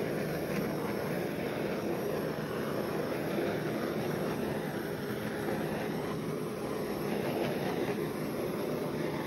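Handheld butane torch burning steadily, its flame played over wet poured acrylic paint to bring up cells.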